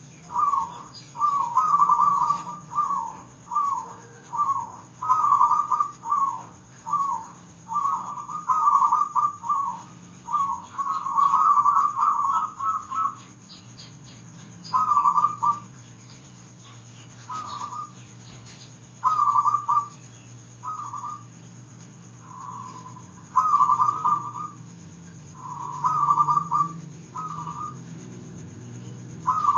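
Zebra dove (perkutut) cooing: short, rapid trilled phrases repeated over and over, closely packed at first and spaced out with pauses from about halfway through, over a low steady hum.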